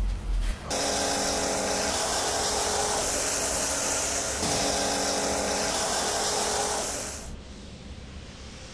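A motor-driven car-cleaning machine, such as a pressure washer or vacuum, running steadily with a strong hiss over a steady motor hum. It starts abruptly about a second in and fades out about two seconds before the end.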